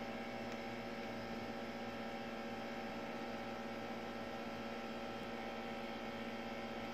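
Steady electrical hum with a few fixed higher tones over faint hiss, unchanging throughout.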